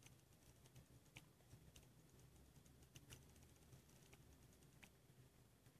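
Faint, scattered clicks and light taps, about one a second, from hands handling a Play-Doh-covered plastic Easter egg and pulling the dough off it.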